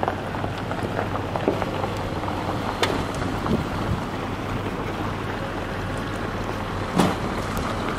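Off-road 4x4s, a Jeep Wrangler and a military Humvee among them, rolling slowly past on a gravel trail: a steady low engine drone with tyres crunching over gravel. Two sharp pops stand out, about three seconds in and near the end.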